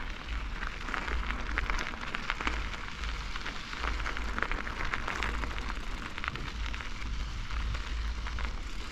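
Bicycle tyres rolling over the path with a steady crackling hiss, over a low wind rumble on the microphone.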